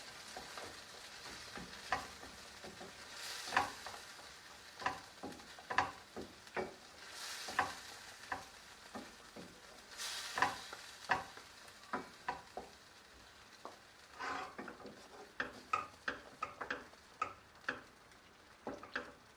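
Utensil stirring a sautéing onion, tomato and cashew gravy in a frying pan: irregular scrapes and taps against the pan, a few longer scraping strokes, over a light sizzle.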